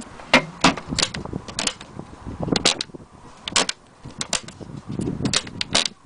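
Irregular series of sharp clicks and knocks, about a dozen, some with a dull thud under them, from a sewing machine carrying case being handled at its lid and metal latch.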